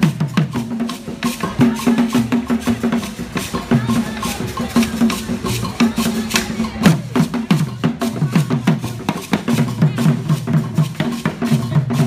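Ensemble of hand drums, djembes among them, playing a fast, steady dance rhythm: many sharp strikes a second over repeating deeper drum tones.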